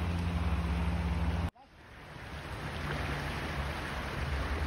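Rush of a river with wind rumbling on the microphone. About a second and a half in the sound cuts off abruptly and fades back up over the next second.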